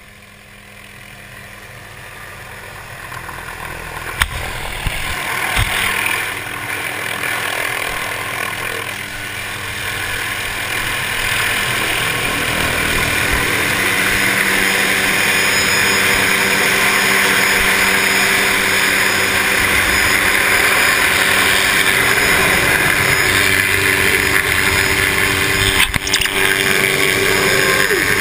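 A helicopter flying in and hovering close by, its rotor and engine noise growing steadily louder over the first dozen or so seconds, then staying loud and steady with a constant hum. A single sharp click comes about four seconds in.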